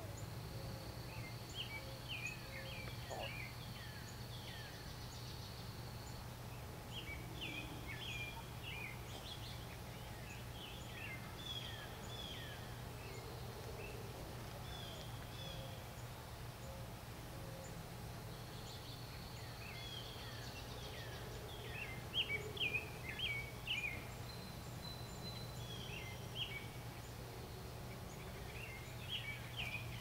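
Wild songbirds singing outdoors in several bursts of quick, down-slurred whistled notes, the loudest phrases a little after the middle. A thin, steady high tone comes in for a few seconds near the start and again later, over a steady low background hum.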